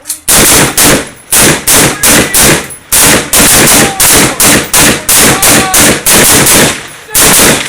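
M16 rifle shots from several shooters firing at once along a firing line. The sharp cracks come in an uneven run, about two to three a second, often overlapping.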